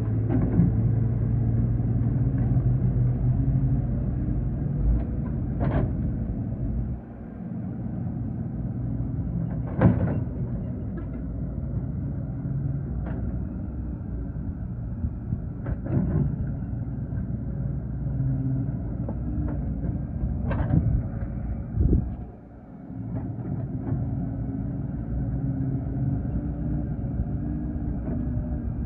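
Excavator engine running steadily, with short dips in level and a handful of sharp metallic knocks spread through it.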